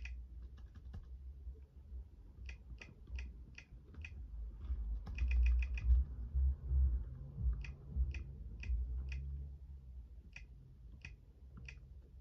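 Laptop keyboard keys pressed one at a time at an uneven pace, with a quick run of about seven keystrokes near the middle.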